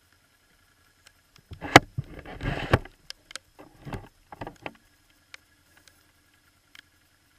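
Camera handling noise: a second or so of rustling and scraping with sharp knocks, the loudest about two seconds in, then a few shorter rubs and clicks as the camera brushes against a rain jacket and helmet. A faint steady hum runs underneath.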